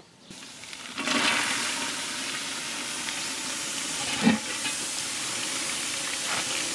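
Soaked soybeans pouring from a basket into a cast-iron gamasot cauldron, a steady rushing patter starting about a second in, with a single knock about four seconds in.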